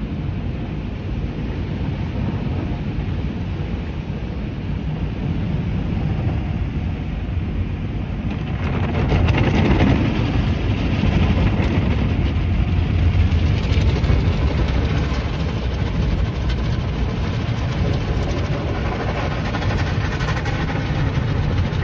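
Sonny's tunnel car wash heard from inside the car: a steady low rumble of water spray and wash machinery on the body. About eight seconds in it grows louder and brighter as soft-cloth brushes and hanging cloth curtains scrub across the windshield and body.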